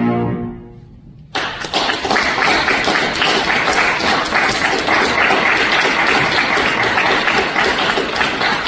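The last cello note dies away over about a second. Then audience applause starts suddenly about a second and a half in and goes on steadily as dense clapping.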